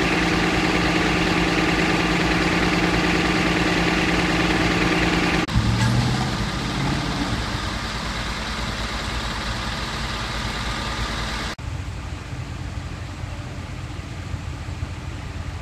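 Motor vehicle engines idling and running, heard across several edited shots: a loud steady idling hum in the first third, then after abrupt cuts a lower, quieter engine and traffic rumble.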